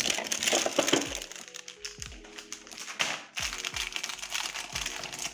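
Plastic wrapper of a Bis chocolate wafer pack crinkling and crackling as it is handled and worked open with one hand, over background music with a steady beat.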